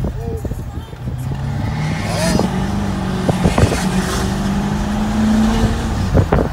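Truck engine and exhaust heard from inside the cabin. The engine pulls steadily under acceleration, its pitch rising slowly throughout, with a few short sharp sounds in the second half.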